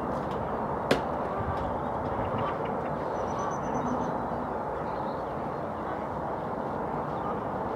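Steady outdoor background noise, a rumble and hiss, with one sharp click about a second in.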